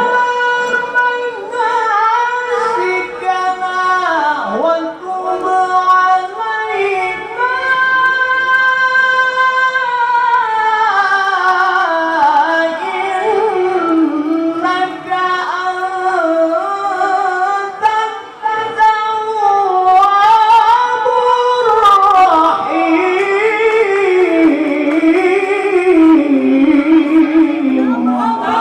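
A male Quran reciter's high voice in slow, melismatic tilawah: long held notes with wavering ornaments, sliding from one pitch to the next with only brief breaths.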